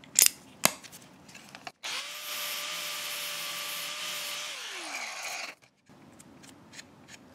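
Two sharp clicks, then a small high-speed rotary cutting tool runs for about four seconds, trimming the threads of a banjo bolt, a steady whine over a hiss, before it winds down with its pitch falling as it stops.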